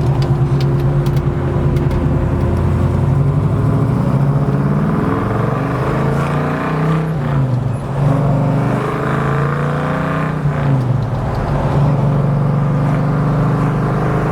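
1967 Chevelle's 396 big-block V8, breathing through headers and Flowmaster dual exhaust, pulling under acceleration. The engine note climbs, drops at about eight seconds, climbs again and drops near eleven seconds as the four-speed manual is shifted, then holds steady.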